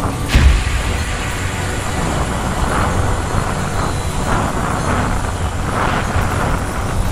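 On-board sound of a Yamaha R15 motorcycle on the move: its single-cylinder engine runs steadily under wind noise on the microphone. There is a single thump about half a second in.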